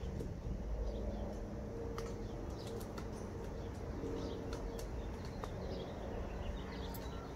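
Low outdoor rumble with scattered faint clicks of rope and saddle gear being handled, and a bird cooing softly in the background in short low notes.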